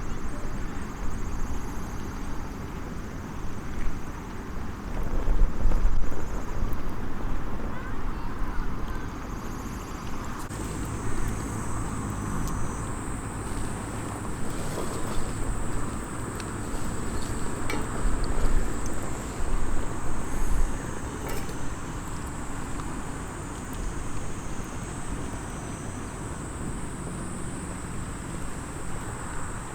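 Small wood fire crackling now and then over a low outdoor rumble that swells in gusts. From about ten seconds in, a steady high insect trill joins and continues.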